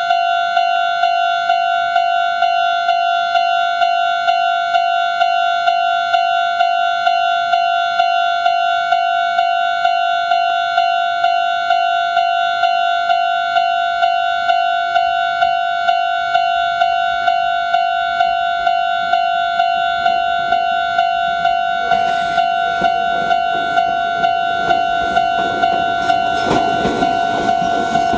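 Japanese railway level-crossing warning bell ringing steadily, about two strokes a second. About two-thirds of the way in, a Meitetsu 6800-series electric train's running noise joins it, rising as the train nears the crossing.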